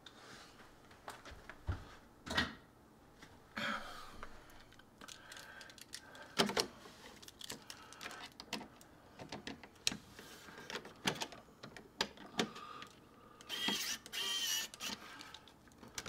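Scattered plastic clicks and taps as a thermostat base plate is handled and seated on the wall, then a small pen-type electric screwdriver whirring in two short runs near the end, driving a mounting screw.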